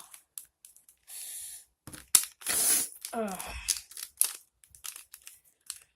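Plastic 3x3x3 mirror cube being turned by hand: a run of quick clicks and scrapes as the layers rotate. About three seconds in there is a short, falling voice sound.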